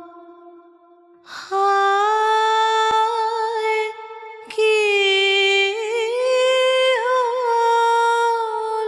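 A woman's voice humming long, held notes without words, with small wavering ornaments. A soft tail fades at the start, then one phrase begins about a second and a half in and another about four and a half seconds in.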